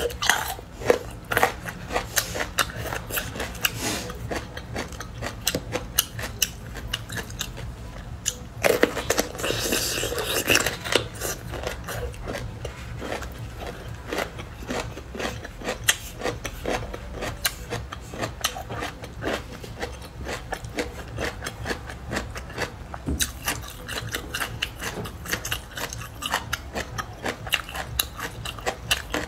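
Biting and chewing of cooked bamboo shoots: many small crisp crunches and chewing clicks, several a second, busiest about nine to eleven seconds in.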